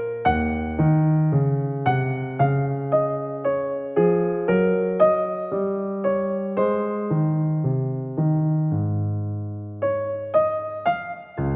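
Soft background music: a slow keyboard melody of struck notes that fade, over low held bass notes.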